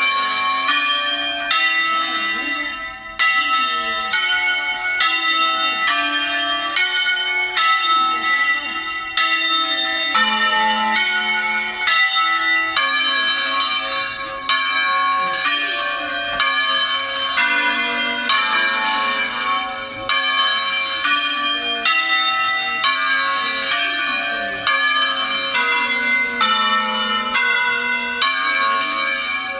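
A ring of six church bells in A-flat, rung by hand in the Veronese style, sounds a steady succession of strokes, about three every two seconds, the notes changing from stroke to stroke.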